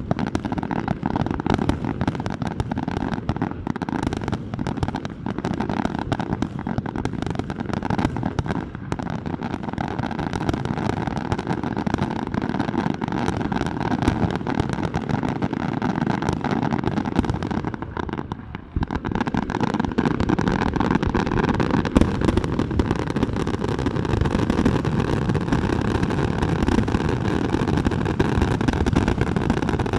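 Fireworks display: a dense, continuous run of bursts and crackling. About two-thirds of the way through it drops away briefly, then a steadier, dense rumble carries on.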